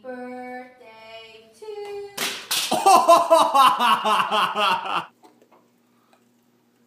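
A woman singing a few held notes, then loud laughter and shrieking for about three seconds that stops abruptly; near silence with a faint hum follows.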